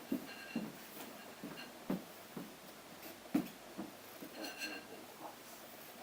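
Faint short knocks or taps, about two a second, with a brief faint ringing clink about four and a half seconds in.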